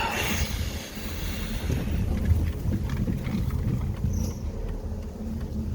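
A car driving through deep floodwater: a steady low engine and road rumble with water washing around the car.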